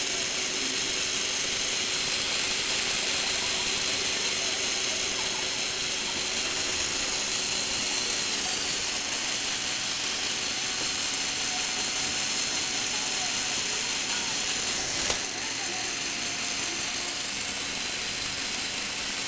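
Lego Technic plastic gearbox driven by a Power Functions electric motor, its gears meshing in a steady high whir. A single sharp click about three-quarters of the way through as the gear is shifted, after which it runs a little quieter.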